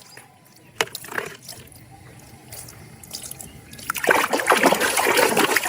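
A single knock about a second in, then from about four seconds in, water splashing and trickling as a muddy toy animal is washed.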